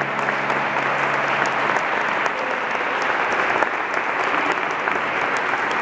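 Audience applauding steadily after a song. A low held tone dies away about two seconds in.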